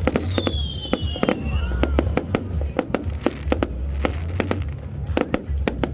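Fireworks going off in rapid succession: many sharp bangs and crackles over a steady low rumble. A whistling firework near the start gives a high whistle that slides down in pitch over about a second and a half.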